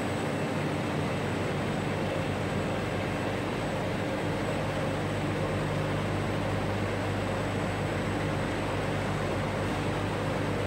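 Steady industrial din of a running sugar mill tandem, where vertical electric motors on planetary gearboxes drive the milling rollers. It is a continuous low hum with a thin, steady high-pitched tone above it.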